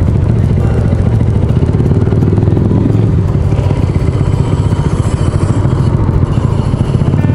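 Small motorcycle engine idling steadily, with a rapid, even beat.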